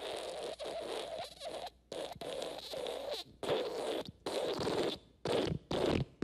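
A string of fart sound effects: one long fart of about a second and a half, then several shorter ones separated by short gaps.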